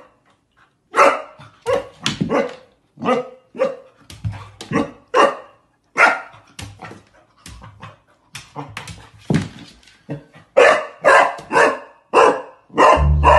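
A puppy barking at its own reflection in a mirror: after a second of quiet, short sharp barks come in quick runs, the loudest run near the end.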